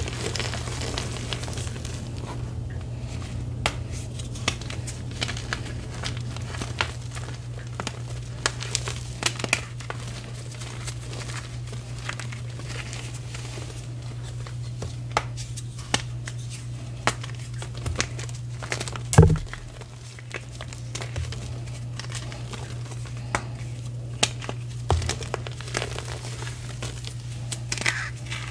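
Reformed gym chalk crushed and crumbled by hand: a stream of small crunches and crackles as pieces break and powder grinds between the fingers, with one louder knock about two-thirds of the way through. A steady low hum sits underneath.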